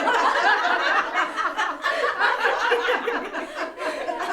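A crowd of people laughing together, many overlapping voices in a continuous wash of laughter, easing off slightly near the end.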